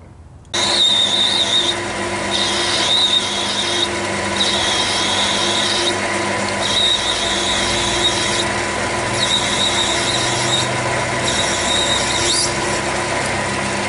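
Metal lathe starting up about half a second in and running with a steady hum, while the cutting tool turning an acetal plastic plug squeals in six bursts of a second or two each.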